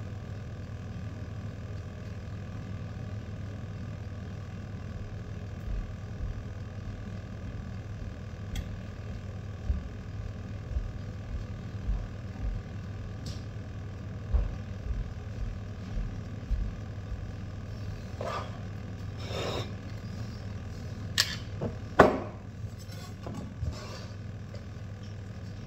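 Steady low hum from a running kitchen appliance, with soft low bumps through the middle. Near the end come a few scrapes and two sharp clacks, as cookware is handled.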